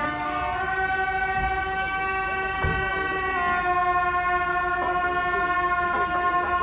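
Music: long held notes rich in overtones, stepping to a new pitch about half a second in and again past the middle.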